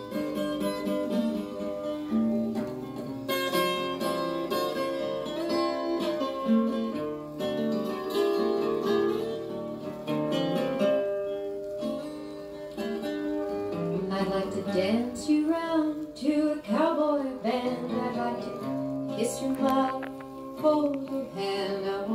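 Song playing: acoustic guitar, with a voice singing that comes in about two thirds of the way through.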